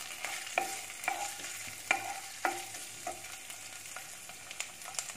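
Wooden spatula stirring chopped garlic and ginger across the bottom of a nonstick pot, in short scraping strokes about every half second that thin out after about three seconds, over a faint sizzle of the oil frying them.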